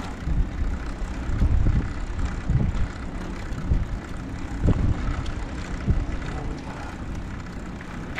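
Wind rumbling on the microphone over tyre and road noise from a recumbent trike rolling along a tarmac road, with an uneven, gusting loudness and a few light knocks.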